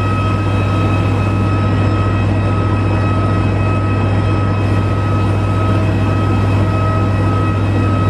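Steady drone of a parked Airbus A320's auxiliary power unit: a constant high whine over a low hum, unchanging in level.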